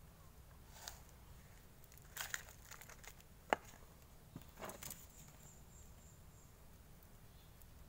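Soft clicks and rustles of gloved hands handling a small plastic nursery pot and wooden chopsticks on a plastic tray, with one sharp tap about three and a half seconds in.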